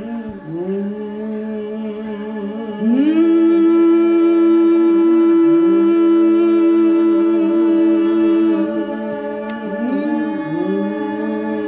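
Several voices humming long wordless held notes. A low note dips and returns every few seconds, and about three seconds in a higher voice slides up into a loud note held for some five seconds.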